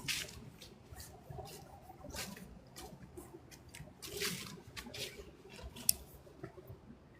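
Footsteps crunching and rustling through fallen leaves on a trail, in irregular steps, with a sharp click near the end.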